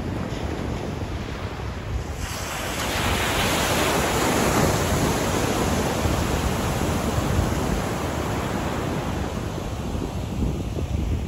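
Pacific surf on a sandy beach: a wave's wash swells about two seconds in, then slowly fades. Wind buffets the microphone throughout with a low rumble.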